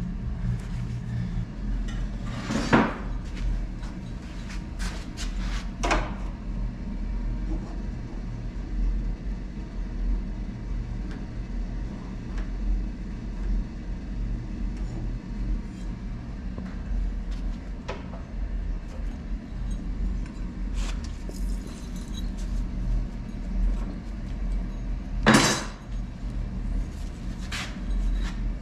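Scattered metal clinks and knocks as steel frame parts are handled and shifted into position during a test fit, over a steady low hum. The loudest knocks come about three seconds in and near the end.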